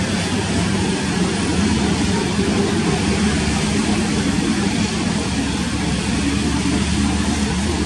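Jet engines of a Nepal Airlines Airbus A330 running at low thrust as it taxis and turns on the runway: a steady rushing noise with a low hum.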